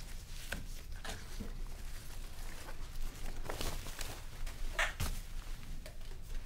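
Rustling and crinkling of a soundbar's packing wrap as it is unrolled and pulled off, with light handling knocks; the sharpest rustles come about three and a half and five seconds in.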